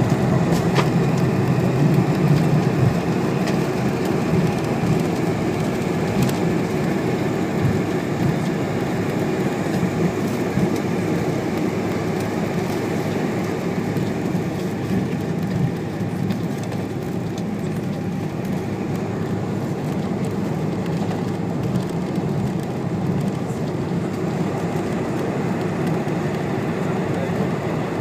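Steady low rumble inside a Boeing 747's passenger cabin as the jet taxis on the ground, engine and rolling noise heard through the fuselage, easing slightly in level as it goes.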